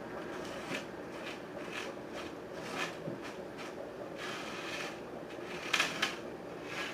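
Light knocks and rustles of objects being handled, over a steady faint hiss. Two sharper knocks come close together about six seconds in.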